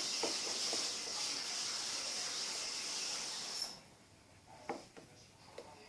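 A steady hiss that cuts off suddenly about three and a half seconds in, followed by a couple of faint light knocks.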